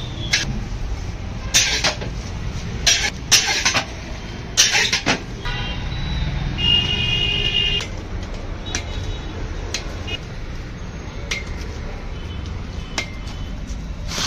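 Long metal ladle scraping and clanking against a large iron wok as baati are turned through ash and embers. There are several sharp strikes in the first five seconds and only scattered ones after, over a steady low rumble of street traffic.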